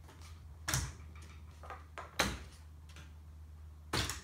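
Three short knocks and clatters of parts and tools being handled on a workbench, the loudest about two seconds in, over a steady low hum.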